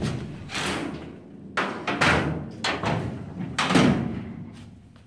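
Steel tailgate on a 1966 Ford Bronco being pushed and knocked against the body while its hinges are adjusted: about five metal thuds, each with a short ring, dying away near the end.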